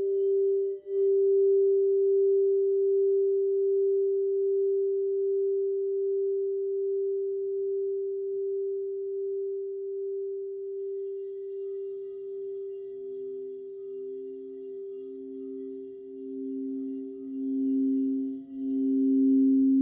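Crystal singing bowls ringing. One steady, sustained tone holds throughout, and a second, lower bowl swells in from about halfway with a slow pulsing wobble, growing loudest near the end.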